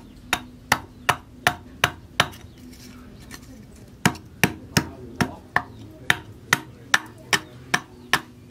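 A small hatchet chopping into a block of red hardwood held on a log, trimming the blank for a knife handle: quick, regular chopping strikes, about three a second, with a short pause around two seconds in.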